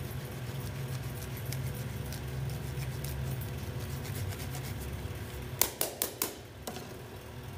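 Cheese being grated over a foil plate with a flat metal hand grater: faint rasping strokes, then four sharp metallic taps in quick succession about five and a half seconds in and one more a moment later. A steady low hum sits underneath.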